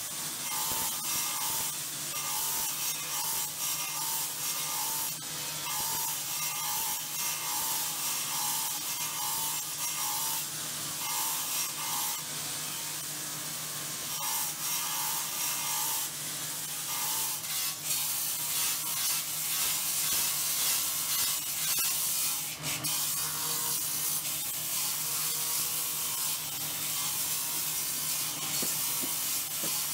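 Motor-driven grinding wheel shaping and smoothing a stone sphere pressed against it: a steady rasping grind with a bright hiss over the motor's low hum. A mid-pitched tone pulses on and off through roughly the first half, as the contact with the sphere changes.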